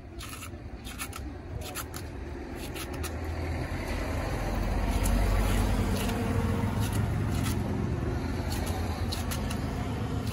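A kitchen knife slicing and shredding a cabbage held in the hand, as a run of short crisp cuts. A low rumble swells underneath and is loudest about halfway through.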